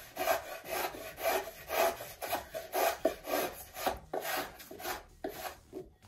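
Small razor plane shaving balsa wood blocks in short, repeated strokes, about two a second, each a brief dry scrape as a thin shaving comes off.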